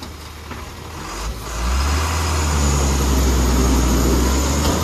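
A Tata 3525.TK tipper truck's diesel engine idles, then revs up about a second and a half in and holds at higher revs. This is the engine driving the hydraulic hoist to raise the loaded dump body for unloading.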